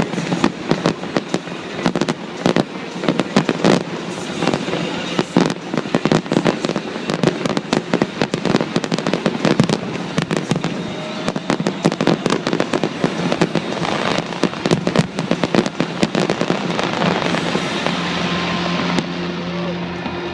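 Fireworks display in a rapid, continuous barrage of bangs and crackling bursts, thinning out over the last few seconds as music comes up.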